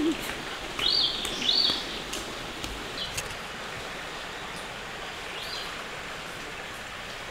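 A bird's short, high chirping calls: two in quick succession about a second in, then single calls around three and five and a half seconds in, over a steady outdoor hiss.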